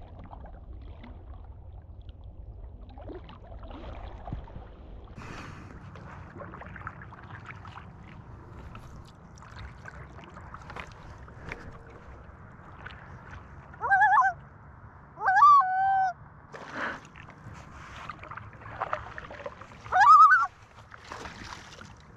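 Common loon calling: several loud, wavering calls over about six seconds in the second half, over the low swish of a paddle in water.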